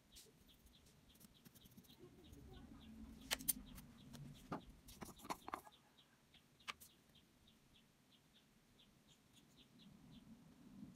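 A plastic jar of acrylic paint handled and its screw lid taken off, giving a cluster of sharp clicks about three to five seconds in. Under it, faint high ticking repeats about three times a second.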